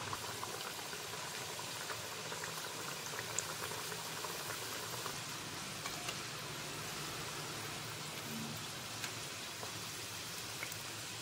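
Mung dal kachoris deep-frying in oil in a kadhai on a medium flame: a steady, even bubbling sizzle. A few faint ticks come from metal tongs turning them in the pan.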